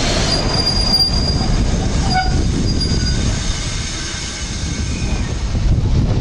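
Train wheels running on rails, with a steady rumble and several brief high, thin squeals in the first few seconds. It is heard from aboard the moving train.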